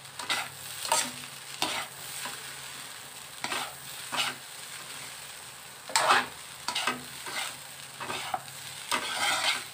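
Metal spatulas scraping and tossing fried rice in an aluminium wok, in irregular strokes about every half second to second, with a faint sizzle of the frying rice beneath.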